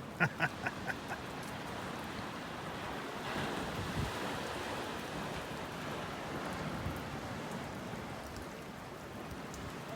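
Rain falling steadily. A quick run of five or so short pitched calls comes in the first second.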